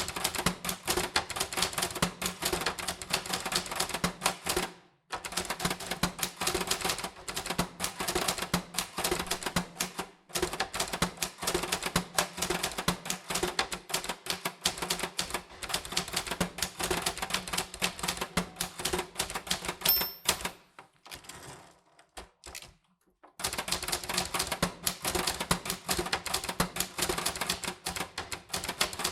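Typewriter keys striking in quick runs, with short breaks between them. About twenty seconds in, a single short high ding, like the typewriter's margin bell, is followed by a quieter gap of a couple of seconds before the typing starts again.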